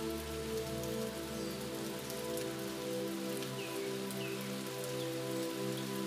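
Steady rain falling on foliage, mixed with a soft sustained music drone of held tones. A couple of short falling bird chirps come about three and a half seconds in.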